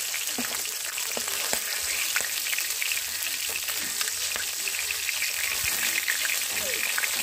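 Catla fish heads frying in hot mustard oil in a kadai, the oil sizzling with a dense crackle. A few light utensil knocks come through as the fried heads are lifted out.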